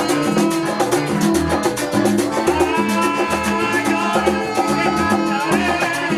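Latin dance music with a steady, fast percussion beat, a bass line and sustained melody lines, without singing.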